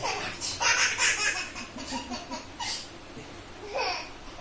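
A person laughing hard in a run of breathy bursts, with one more burst of laughter near the end.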